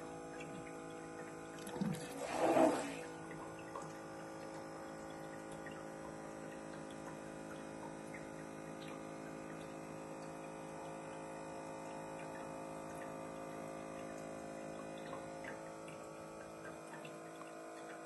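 Water-vapour fireplace auto-feeding water: a steady hum of several fixed tones from its feed pump, with one short louder noise about two seconds in. The lowest rumble drops away near the end.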